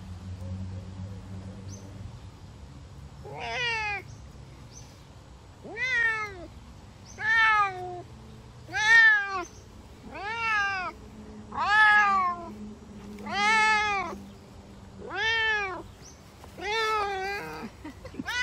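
Savannah cat meowing over and over: about nine loud meows, one every second and a half or so, each rising and then falling in pitch, starting about three seconds in.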